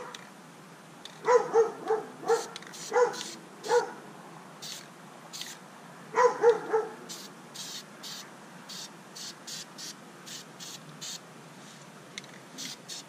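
Spray paint can hissing in many short taps as it is dusted over the gun, while a dog barks: a run of about six barks starting about a second in, then three more about six seconds in.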